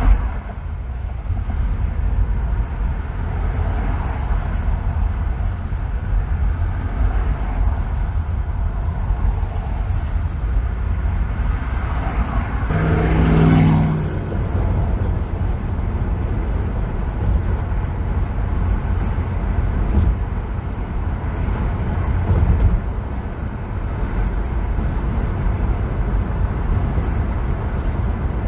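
Steady low road and tyre rumble of a vehicle driving on a freeway. About halfway through, a louder swell carrying a low hum rises and fades.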